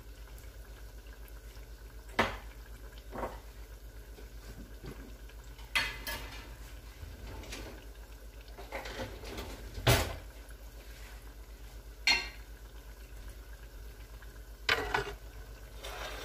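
Dishes and kitchen utensils clanking on a glass-top stove as a fried turnover is plated and a jar is set down: about six separate knocks and clinks, the loudest near the middle. A steady low hum runs underneath.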